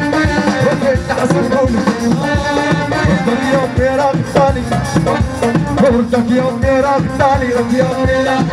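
Live Moroccan chaabi music through the stage PA: a male singer's voice over a band with a steady, driving percussion beat.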